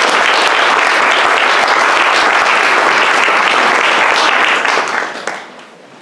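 Audience applauding: steady, dense clapping that dies away about five seconds in.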